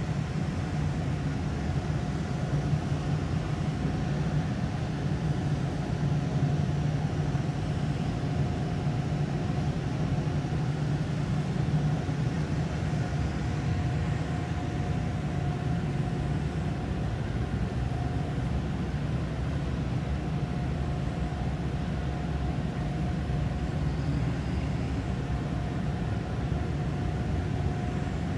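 Steady low hum and rush of background noise with a faint constant tone, unchanging throughout; no distinct knocks or clanks stand out.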